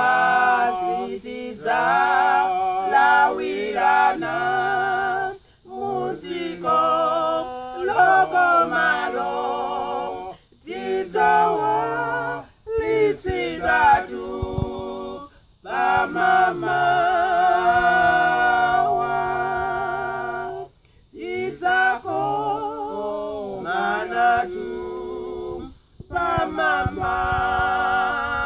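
A man and two women singing a hymn together a cappella, in phrases broken by short pauses every few seconds.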